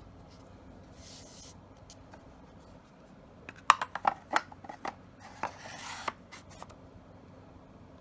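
Beretta A400 shotgun parts being handled: a quick scrape, then a run of sharp metallic clicks and clacks about halfway through, a brief rubbing scrape, and a few last clicks.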